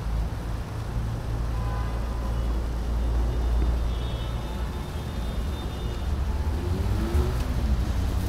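City street traffic, cars running past with a steady low rumble.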